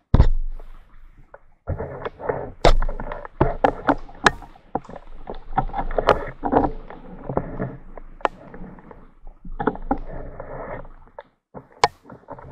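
Off-road motorcycle engine revving in uneven bursts with short gaps, as the bike is worked through deep mud, with sharp knocks and clicks scattered among the revs.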